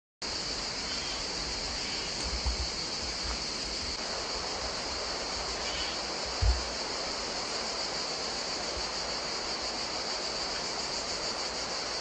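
Steady high-pitched insect chorus, with two brief low bumps about two and a half and six and a half seconds in.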